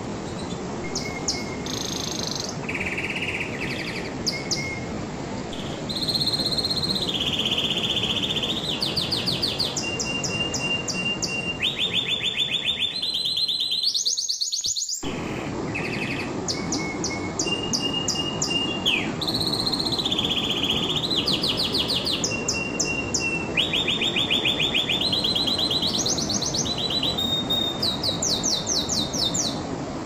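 Domestic canary singing a long, continuous song of rapid trills: runs of quickly repeated notes, each held for about a second before the bird switches to a new pitch. A steady hiss runs underneath.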